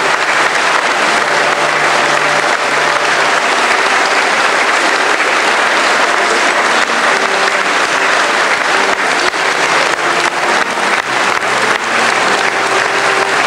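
A large congregation applauding steadily in a reverberant church, with a few faint held notes underneath.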